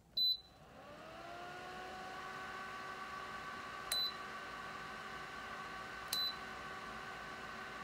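BLACK+DECKER BHT907R desktop heater beeping three times as its control-panel touch buttons are pressed, the first beep as it switches on. Its fan then spins up, a hum rising in pitch that settles into a steady whir.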